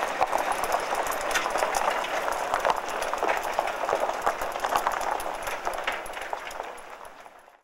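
Roadside street ambience at night with vehicles passing: a steady noisy hiss dotted with many small clicks and clatter, fading out near the end.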